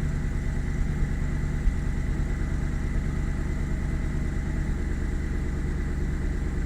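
BMW 735i E65's 3.6-litre V8 idling after a cold start. The idle is uneven, with occasional sharper pulses, notably one near two seconds in, typical of the misfire it has when cold.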